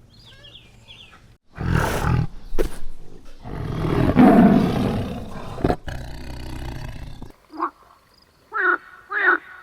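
A large wild animal roaring: two loud, rough roars in the first half. Near the end, a few short, repeated pitched calls from another animal follow.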